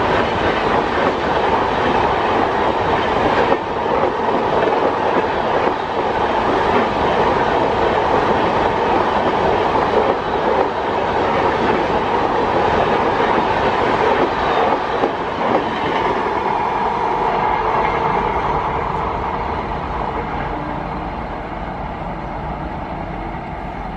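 Indian Railways express train's LHB passenger coaches rushing past at speed: steady loud rolling and wheel clatter on the rails. The noise fades over the last several seconds as the train draws away.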